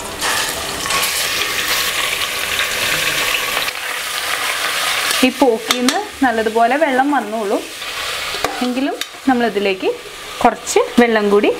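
Pork cubes sizzling as they are dropped into hot oil in an aluminium pressure cooker. From about five seconds in, a spoon stirs them, with sharp clanks and wavering squeaks against the pot.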